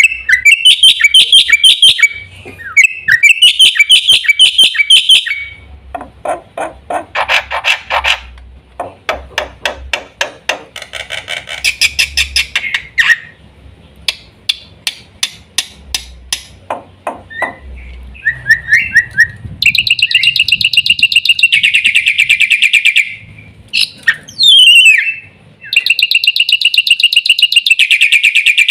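Black-winged starling (jalak putih) calling loudly. Bouts of rapid, harsh chattering calls a few seconds long alternate with runs of sharp, repeated single notes.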